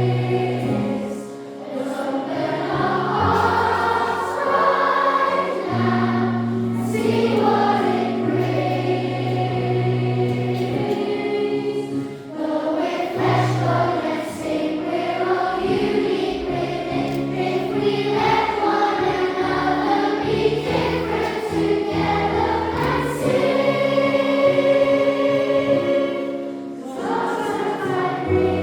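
A massed children's choir singing, phrase after phrase, with brief pauses between phrases about a second and a half and twelve seconds in.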